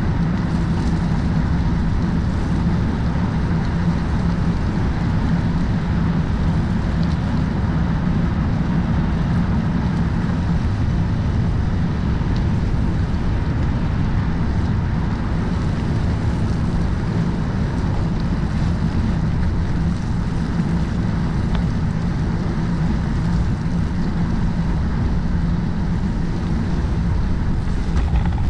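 Steady rushing wind on a bicycle-mounted action camera's microphone while riding along, with the low rumble of the tyres rolling on the road beneath it.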